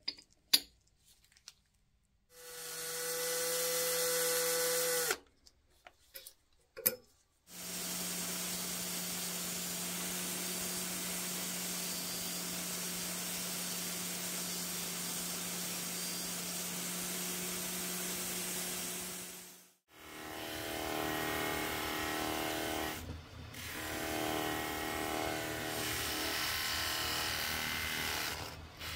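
A few sharp metal taps, and a small motor runs briefly about two seconds in. From about seven seconds an angle grinder with a thin disc runs steadily, then stops suddenly. It is followed by a polishing wheel spinning while a brass clock gear is pressed against it, the sound rising and falling with the pressure.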